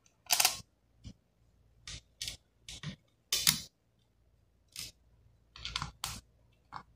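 A string of sharp plastic clicks and clatters, the loudest about half a second in and about three and a half seconds in: a laptop's plastic bottom cover is pressed and handled, and small screws and a screwdriver knock against the cover and the desk.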